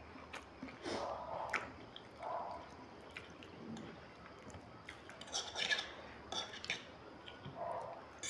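Close-up eating sounds: wet mouthfuls of ramen noodles being chewed and slurped, with a few light clinks of metal forks on ceramic plates.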